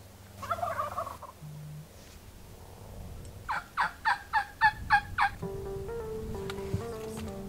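A wild turkey call: a short note near the start, then a run of about seven evenly spaced yelps a few seconds in. Background music comes in near the end.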